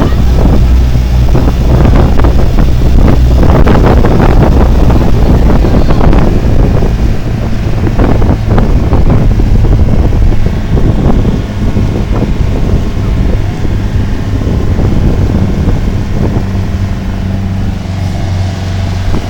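Sightseeing boat's engine running steadily under way, a low drone, with the wake churning and wind buffeting the microphone in gusts, heavier in the first half.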